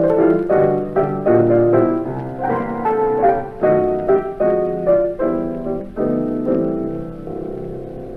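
Background piano music: a steady run of notes that grows quieter and fades out near the end.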